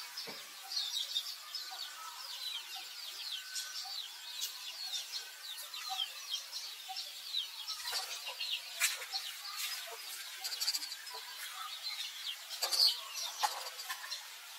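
Small birds chirping busily in the background, with rapid high chirps throughout and a few sharp clicks in the second half.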